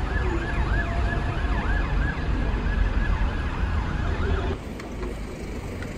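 Emergency vehicle siren in rapid yelp mode, rising and falling about three times a second, over a low rumble of street traffic. The siren cuts off about four and a half seconds in.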